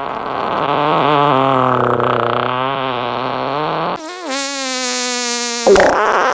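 Drawn-out fart sounds with a low, wavering pitch: one of about four seconds, then a steadier one of under two seconds, and a third beginning near the end.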